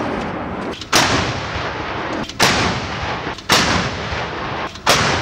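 CAESAR 155 mm truck-mounted howitzers firing: four sharp, loud reports about a second to a second and a half apart, each followed by a long rumbling echo that carries on between the shots.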